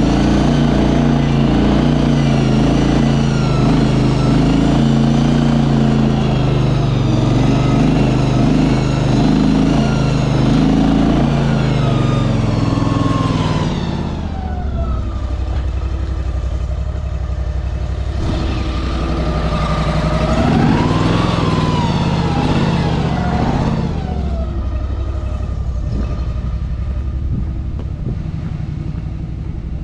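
Tracked shed mover's small engine running under load with a wavering whine from its hydraulic drive as it carries a wooden shed. About fourteen seconds in the engine sound drops, then rises and falls again a few seconds later.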